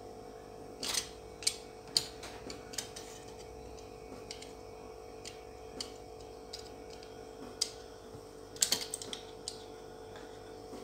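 Scattered sharp clicks and taps of a plastic snap-off utility knife knocking against a plastic jug and the soaked melon inside. A few come about a second to three seconds in and a quick cluster near the end, over a steady hum.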